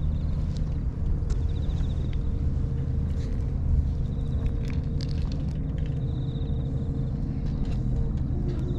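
Steady low engine-like rumble of an idling motor, with scattered faint clicks.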